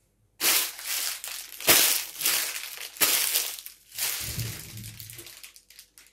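Heavy footsteps crunching through snow: a slow series of loud crunching steps, about one a second.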